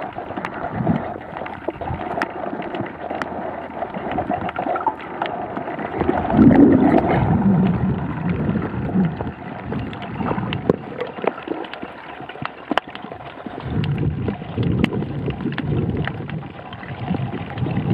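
Muffled water sound picked up by a submerged camera: gurgling and sloshing that swells twice, with scattered faint clicks.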